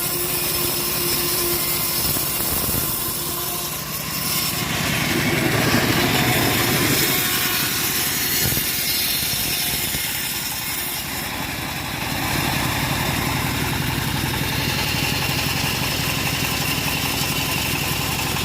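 Engine-driven homemade saw rig running and cutting old teak. A steady engine hum grows louder and fuller from about four seconds in as the blade works through the wood, then drops back to a steady run from about twelve seconds in.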